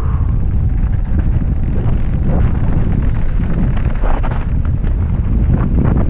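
Wind buffeting a helmet-mounted camera's microphone at riding speed, a steady heavy rumble, with tyres crunching over loose gravel and stones in scattered clicks and crackles.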